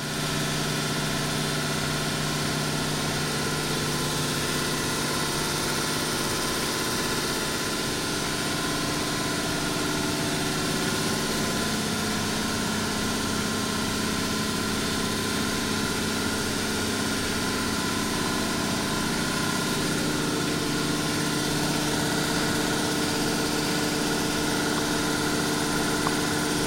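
Mercury-arc rectifier running: a steady electrical hum of several held tones, with a hiss over it.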